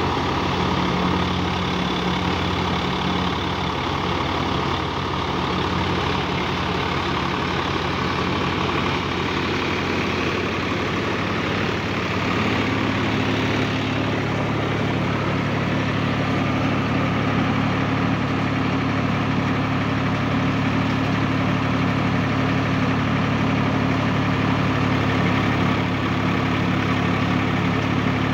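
Swaraj 744 XT tractor's three-cylinder diesel engine running steadily with the tractor in neutral. About twelve seconds in, its note changes and it gets a little louder, then holds steady.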